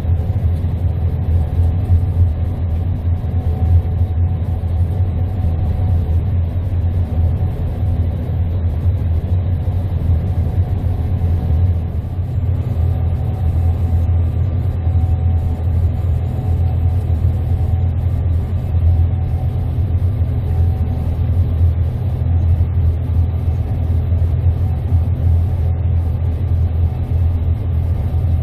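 Gleaner S98 combine harvester running steadily under load while cutting wheat: an even, loud low rumble with a faint steady whine above it.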